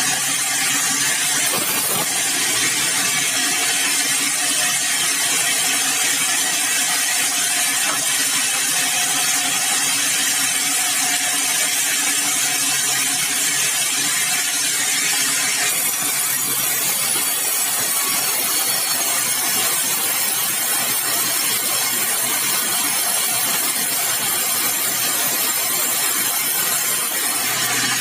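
Sawmill saw cutting through a large, dry, hard red balau log: a loud, steady cutting noise, its tone changing a little past halfway through.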